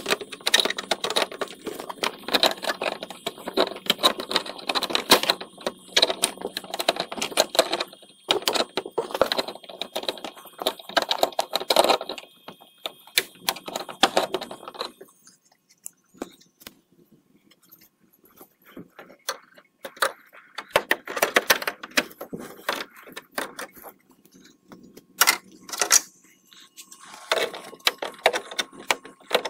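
Rattling and clicking of a Chevy Silverado's plastic radiator grille and its retaining clips as hands work it loose: dense clattering through the first half, a quieter stretch, then a few sharp clicks and more rattling near the end.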